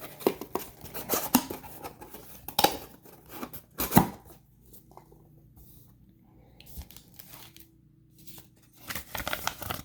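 A box's packaging being opened by hand: tearing and rustling of paper and plastic, with one sharp knock about four seconds in, then a few quieter seconds before the rustling picks up again near the end.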